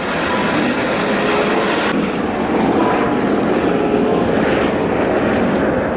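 A helicopter with a ducted (fenestron) tail rotor flying low and close, its rotor and turbine making a steady, loud rushing noise that turns abruptly duller about two seconds in.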